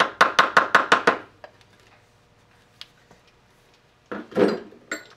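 A mallet tapping a brass drift against a lathe spindle gear to drive it off: a quick run of about eight light taps, then quiet. A louder clunk and rattle of metal follow about four seconds in.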